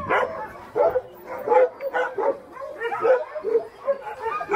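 A yard of Alaskan husky sled dogs barking and yipping together: short, overlapping calls several times a second.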